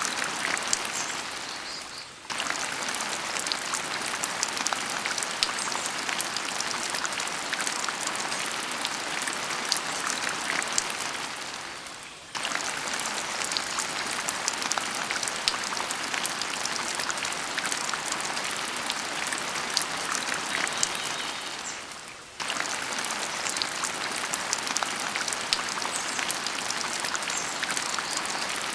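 Steady rain-like patter, a dense crackling hiss of many small drops. It fades down and then cuts back in abruptly every ten seconds or so, like a looped recording.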